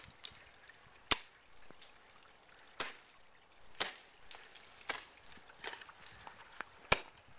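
Ice axe picks and crampon points striking into waterfall ice: about six sharp, uneven strikes, roughly one a second, the loudest about a second in and near the end.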